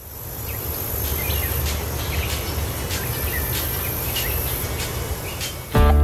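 Field ambience: a steady high insect buzz that stops a little before the end, scattered short bird chirps and a low rumble. Guitar music comes in near the end.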